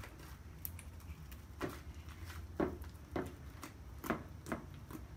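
Homemade glue slime being kneaded by hand in a plastic tub: a series of short wet squishes and pops, about two a second from a second and a half in.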